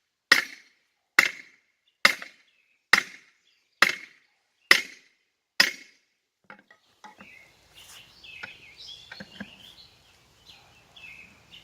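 Seven sharp, evenly spaced hammer blows on the steel lock ring of a military split-rim wheel, about one a second, each ringing briefly. They are knocking the ring down past the tire bead so it can be pried off. Faint clinks and shuffling follow for the last few seconds.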